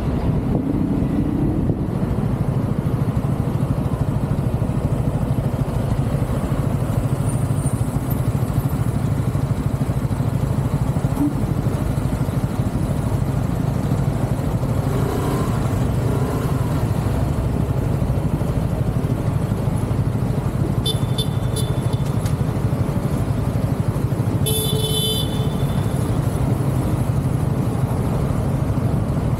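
Motorcycle engines running steadily in city traffic, heard from a camera mounted on one of the bikes. Two short high-pitched horn beeps sound in the last third.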